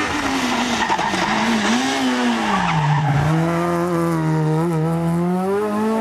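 Rally car taking a hairpin: the engine's pitch falls over about three seconds as it brakes and slows for the bend, with tyres scrubbing. It holds low, then climbs as the car accelerates hard out of the turn.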